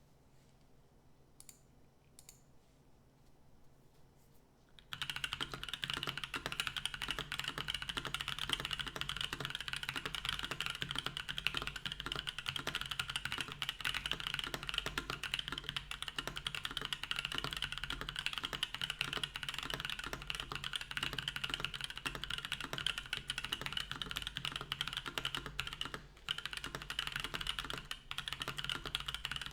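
Fast, continuous typing on a Matrix AbelX V2 custom mechanical keyboard with lubed Gazzew U4T tactile switches, TX films, an aluminum plate and CRP keycaps. It starts about five seconds in after a few quiet seconds with a couple of faint clicks, and pauses briefly twice near the end.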